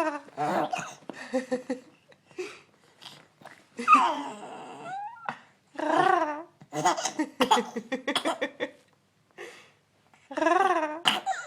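An adult and a young baby taking turns making silly vocal noises: a string of short growly, warbling voice sounds with wobbling pitch and a few brief rising squeaks.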